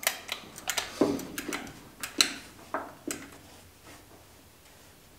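About a dozen sharp, irregular clicks and light knocks from subframe work with a porta-power hydraulic ram, bunched in the first three seconds, after which only faint background remains.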